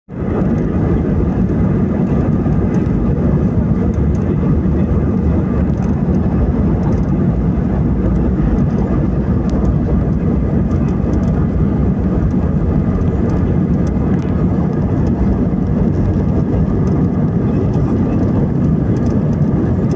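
Airliner taking off: a steady, loud, low rumble of the jet engines at takeoff power.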